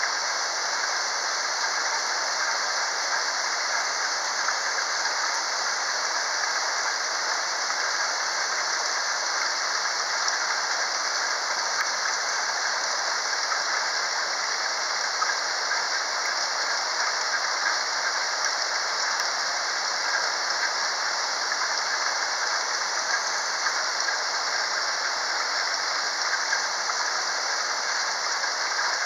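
Steady rain falling during a thunderstorm: an even, unbroken hiss with no thunder claps.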